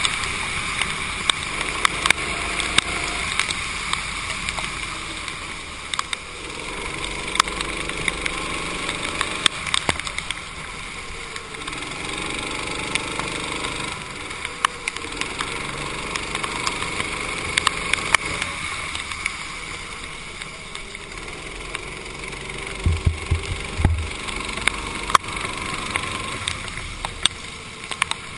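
Racing kart engine running on a wet track, its note rising and falling as the kart accelerates down the straights and slows for the corners. Under it runs a steady hiss of water spray from the tyres, with scattered sharp ticks and two low thumps near the end.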